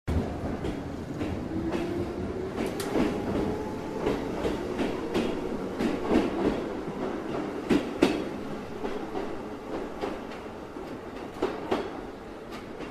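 Train running over rail joints: clicks, often in close pairs, over a steady rumble, growing fainter over the last few seconds.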